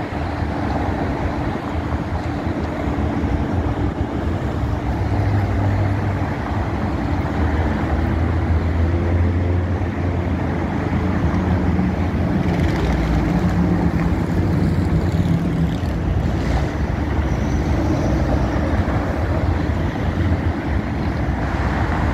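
Steady road and engine noise of a car travelling on a freeway, heard from inside the car, with a low engine hum that shifts in pitch.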